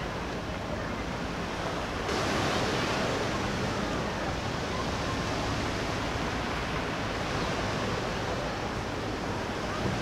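Steady wash of sea surf and wind, without a distinct rhythm or tone, growing slightly louder and brighter about two seconds in.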